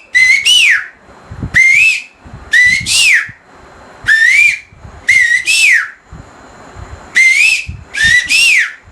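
A man whistling an imitation of an Oriental magpie-robin's song: about seven short phrases with gaps between, each a quick rising note followed by a slurred whistle that rises and then falls.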